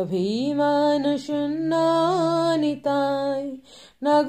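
A woman singing a slow devotional invocation in long held notes with a slight waver, over a steady low drone. The phrases break briefly near the end.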